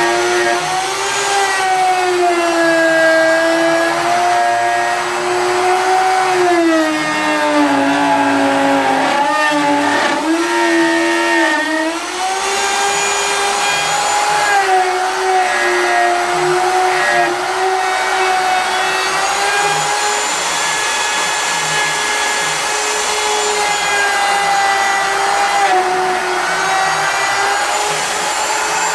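Wood router on a lathe jig running and cutting a groove in wood. Its motor whine rises and falls in pitch as the bit takes load, dipping and wavering most between about nine and twelve seconds in.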